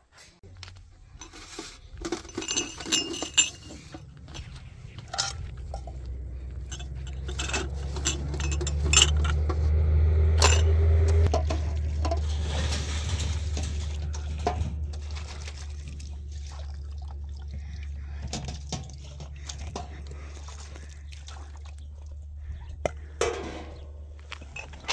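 Scattered clinks and knocks of large roofing sheets being picked up, handled and carried, some with a brief metallic ring. A low steady rumble runs underneath and swells to its loudest about ten seconds in.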